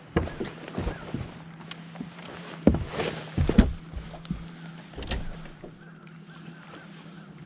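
Irregular knocks and thumps of boots and gear on a bass boat's fiberglass deck as an angler fights a hooked fish, the loudest cluster about three seconds in, over a steady low hum.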